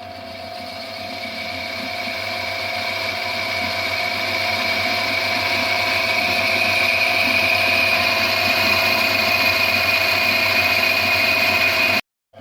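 Metal lathe running while a boring tool cuts through a bearing housing and brake bored together, giving a steady machining whine with a high cutting tone. It grows louder over the first few seconds and cuts off abruptly near the end.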